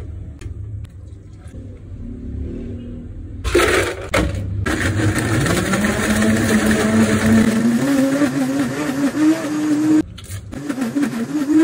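Countertop blender motor blending a chocolate chip frappe: a short pulse, then about six seconds of loud running with its pitch rising steadily, cutting off suddenly. A few spoon clicks come before it.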